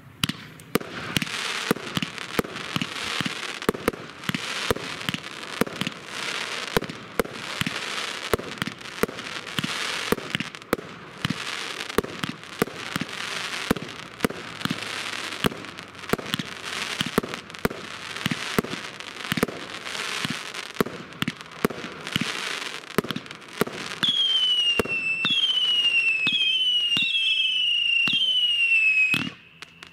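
Katan 'Mixed Emotions' 37-shot firework cake firing: a fast, steady run of shots and star bursts for most of the time. Near the end come about six falling whistles in a row, before it stops abruptly.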